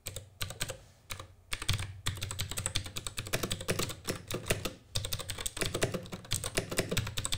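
Typing on a FiciHP touchscreen mechanical keyboard with loud switches: a few separate key strokes at first, then a fast, continuous run of clacking keys from about two seconds in.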